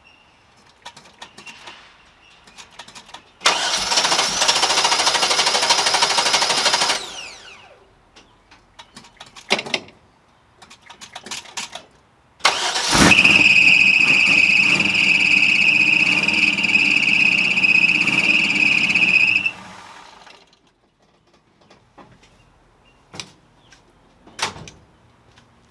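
1964 Chevrolet Impala's engine turned over and started twice. First comes a burst of about three seconds that dies away. Then, after a click, a run of about six seconds with a steady high-pitched squeal over it, cut off suddenly. The owner finds the new alternator belt too thick to seat in its pulley groove.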